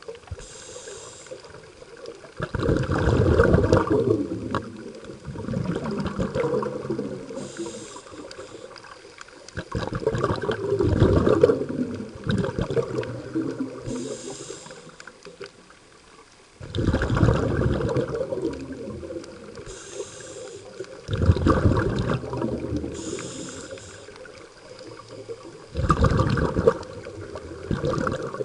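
Scuba regulator breathing underwater: slow breaths, each a short hiss on the inhale followed by a rumbling burst of exhaust bubbles, about six times.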